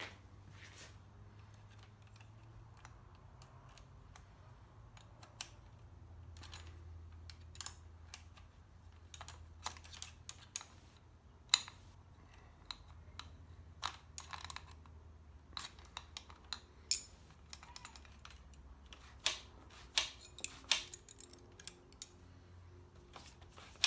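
Irregular light metallic clicks and taps of a 3/8 wrench working the throttle cable lock nuts on a motorcycle handlebar, growing more frequent about halfway through, over a faint low steady hum.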